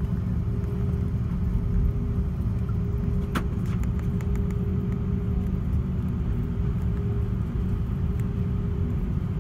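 Airbus A330-300 cabin noise while taxiing: a steady low rumble of the engines at taxi idle and the wheels rolling, with a steady hum and one sharp click about three and a half seconds in.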